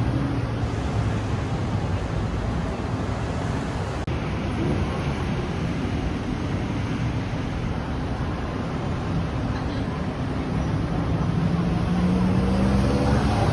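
City road traffic: a steady wash of car and bus engines and tyre noise, with one engine rising slightly in pitch near the end as a vehicle passes.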